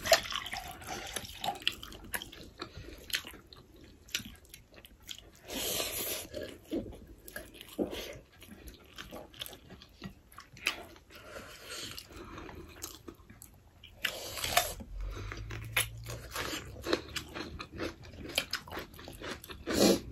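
Close-up eating sounds of people eating rice and curry by hand: chewing, with many small wet mouth clicks and smacks scattered throughout, and a couple of longer hissing, squishing moments about six and fifteen seconds in.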